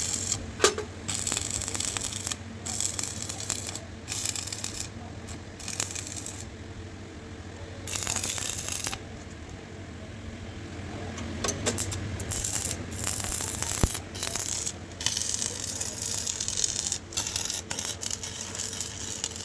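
Metal fabrication work: repeated bursts of hissing, scraping noise that start and stop every second or two, over a steady low hum.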